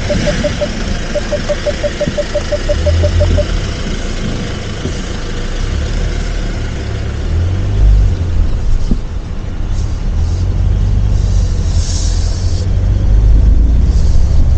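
Hyundai Staria's parking proximity sensor beeping quickly, about five or six beeps a second, stopping about three seconds in. Under the beeps is the steady low rumble of the van driving slowly up a rough, narrow lane, heard from inside the cabin.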